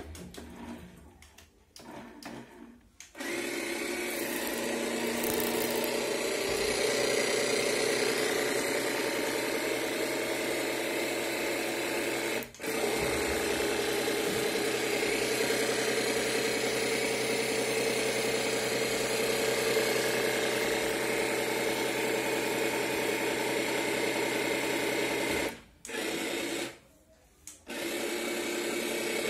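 Small electric motor of a toy remote-control fire truck running with a steady buzzing whine. It starts about three seconds in, dips for a moment midway and cuts out for a couple of seconds near the end before starting again.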